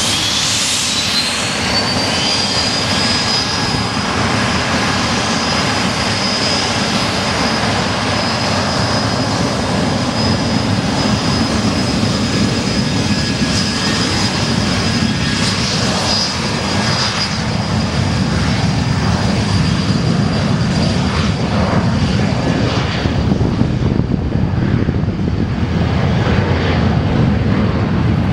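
The U-125A's twin TFE731-5R-1H turbofan engines spool up, their whine rising for about the first two seconds. They then run at high power with a steady high whine over a loud jet rush, as on a takeoff roll. The whine fades near the end.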